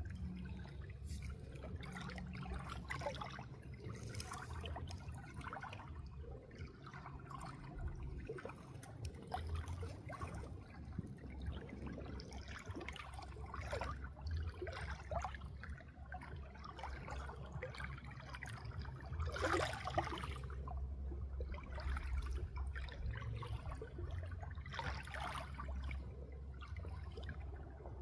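Water trickling and splashing in short, irregular spatters over a steady low rumble, with a louder splash about two-thirds of the way through.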